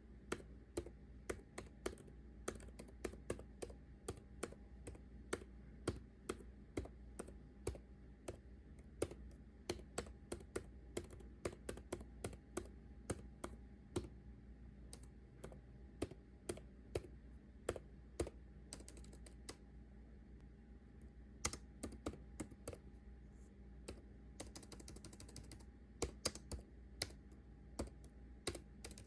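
Typing on a computer keyboard: an irregular stream of key clicks, several a second, over a faint steady hum.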